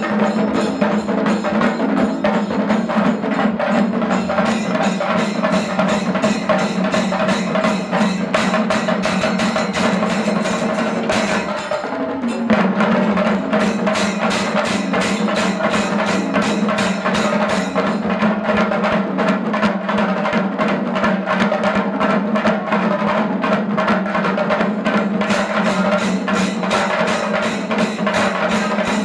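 Chenda melam: a troupe of Kerala chenda drums beaten with sticks in a fast, dense rhythm. The pattern breaks briefly about twelve seconds in, then resumes.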